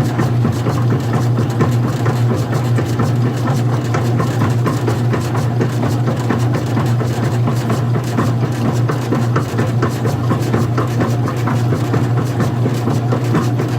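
Old-style front-loading washing machine running: a steady low motor hum with a rapid, even rattle over it.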